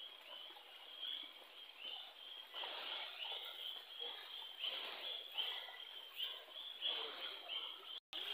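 A steady, high, pulsing chirping chorus of night creatures by a stream, with rustling and steps over stream rocks coming and going. The sound cuts out briefly near the end.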